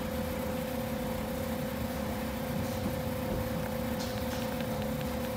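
Steady mechanical hum with a constant whine running through it.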